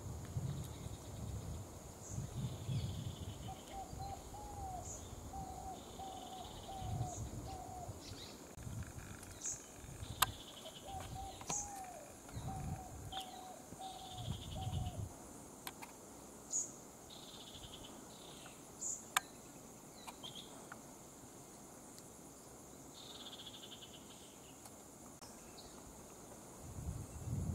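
Outdoor bird and insect ambience: a steady high insect drone, scattered bird chirps, and twice a run of short low whistled notes repeated about one and a half times a second. Low rumbles and a couple of sharp clicks come in the first two thirds.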